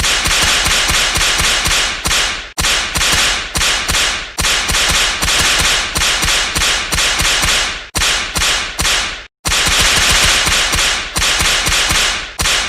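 Whip-crack sound effects repeated in a dense, loud barrage of sharp cracks, several a second. The cracks overlap, and the barrage stops briefly a few times.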